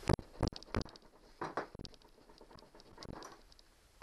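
A few sharp, irregular knocks and clunks of tools against the metal of an outboard powerhead being worked apart, about six in all, two close together near the start and a last one about three seconds in.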